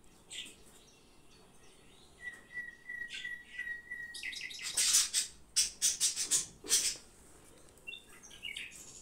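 Small bird chirping: a fast run of repeated high notes about two seconds in, then a cluster of loud, sharp chirps in the middle.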